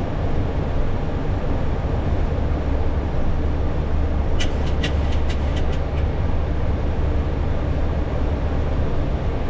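Boeing 737 flight-deck noise just after takeoff: a steady, loud, low rumble of engines and airflow. Around the middle comes a quick run of about eight sharp clicks.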